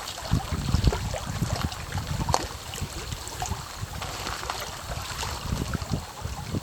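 Small waves lapping against the pond's bank: an irregular run of soft splashes and slaps over a low, uneven wash.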